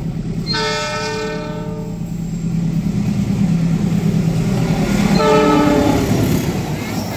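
KAI diesel-electric locomotive approaching with a passenger train, its engine rumble growing louder as it nears. It sounds its multi-tone horn twice: a blast of about a second and a half near the start, then a shorter one about five seconds in.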